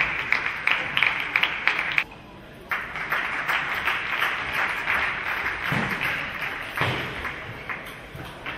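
Table tennis ball clicking off bats and table in a fast rally, about two to three hits a second, stopping about two seconds in. Then the audience applauds for several seconds, dying away near the end.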